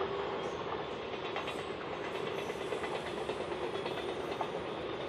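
Incheon Subway Line 1 electric multiple unit moving slowly over the turnback tracks: a steady hum with a few light clicks of wheels over rail joints.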